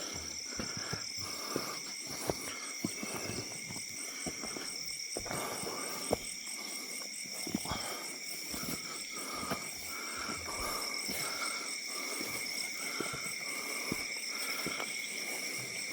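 Night insects such as crickets trilling steadily in several high-pitched layers, one of them pulsing. Irregular footsteps crunch and knock on loose stones underneath.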